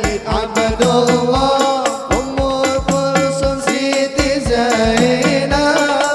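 Sholawat sung by a male lead voice into a microphone over hadroh frame drums (rebana), which keep a steady beat of deep bass strokes and sharper slaps under the sung melody.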